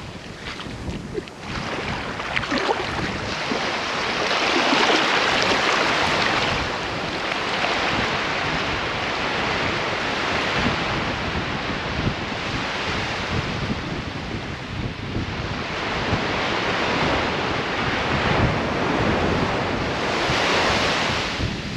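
Shallow surf washing in over a flat sandy beach, with small waves breaking close by; the rush swells and fades every few seconds. Wind buffets the microphone underneath.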